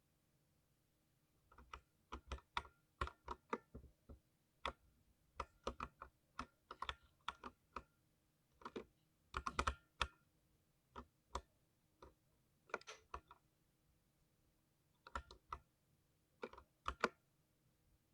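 Typing on a 60% mechanical keyboard with linear silver speed switches: irregular bursts of sharp keystroke clicks with short pauses between them.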